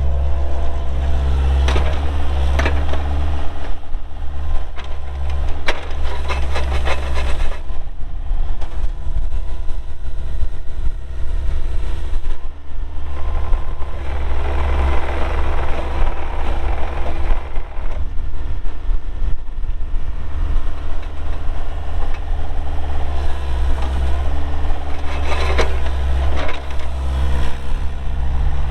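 Bobcat 430 mini excavator working, its 42 hp Kubota diesel running steadily with the pitch sagging and recovering a few times as the hydraulics take load. Knocks and rattles come in clusters during the first several seconds and again near the end.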